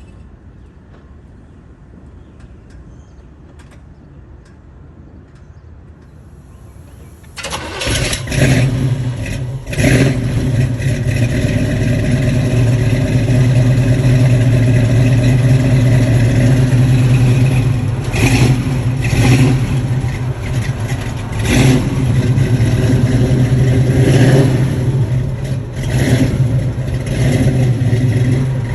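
A vehicle engine starts suddenly about seven seconds in, then runs steadily and loudly, with several short revs through the rest of the stretch.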